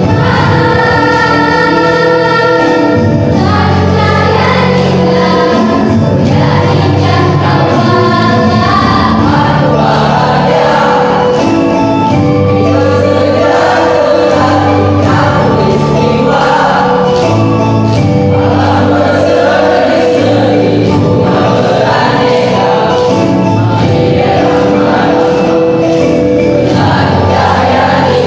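Mixed school choir of boys and girls singing in several parts, holding sustained chords at a steady, full level.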